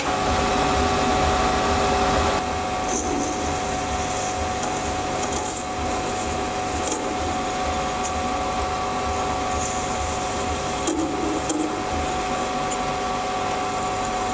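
Sieg C3 7x14 mini lathe running with a steady motor whine while a vertically held high-speed steel tangential tool turns an acrylic test piece. The level dips slightly about two seconds in.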